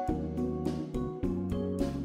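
Background music with a steady beat over a bass line.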